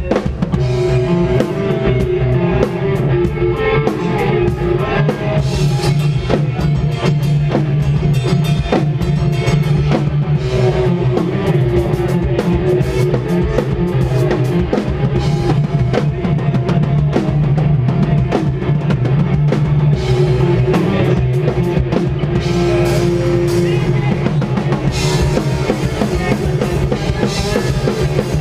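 Post-hardcore band playing live and loud: a drum kit with dense, rapid hits over distorted guitars and bass.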